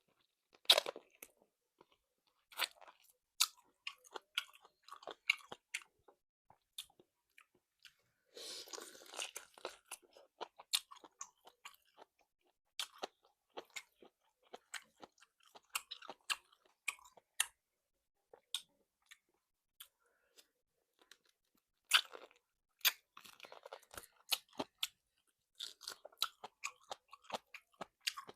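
Close-miked chewing and biting of salt-baked chicken, with irregular crisp crunches from the chewy, crunchy meat and skin. A denser stretch of crunching comes about eight seconds in.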